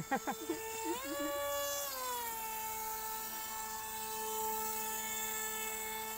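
Small motor of a homemade radio-controlled boat whining as it drives across a pond. The pitch rises about a second in, drops back a second later, then holds steady.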